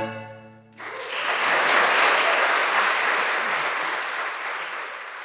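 The final chord of a bowed string ensemble dying away, then audience applause breaking out about a second in and gradually fading.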